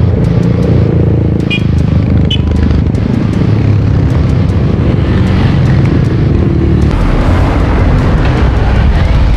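Several Motorstar Z200 motorcycles riding past one after another through a bend, engines running. The sound gets heavier near the end as the nearest bike comes by close.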